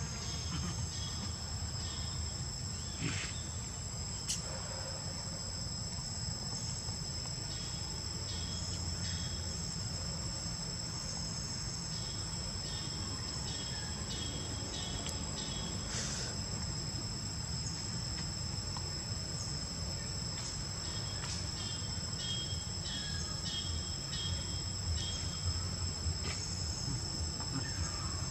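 A steady high-pitched drone of insects, crickets or cicadas, with bursts of quick repeated chirps from other insects now and then. A few faint clicks sound over a low, steady rumble.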